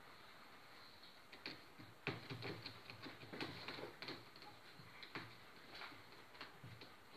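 Maine Coon kittens' claws catching and scratching on a carpet-covered cat tree post as they climb and play, giving faint, irregular clicks and scrapes. A soft thump comes about two seconds in.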